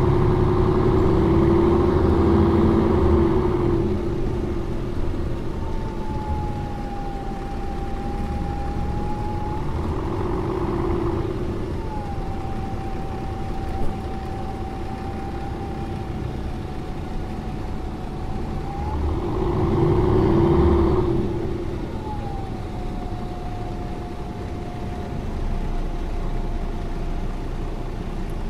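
Mercedes-Benz O405N2 city bus driving. The engine pulls loudly three times, at the start, about ten seconds in and about twenty seconds in. Between these pulls a thin whine slowly falls in pitch.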